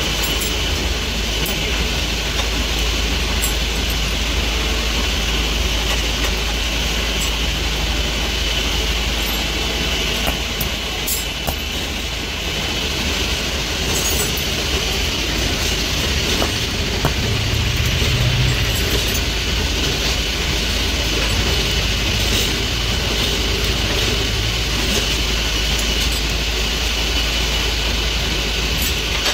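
Steady, loud mechanical din of factory machinery running, with a deep rumble and a constant hiss. It is broken by a few short, light metallic clicks as steel pliers are handled on the anvil block.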